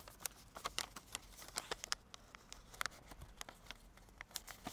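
A sheet of origami paper being folded and creased by hand: irregular quick crackles and rustles of the paper, several clicks a second.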